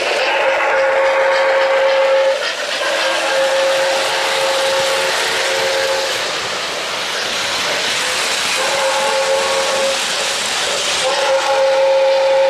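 O-gauge model steam locomotive's onboard sound system blowing its chime steam whistle in several blasts of one to two seconds each, over a steady hiss of steam.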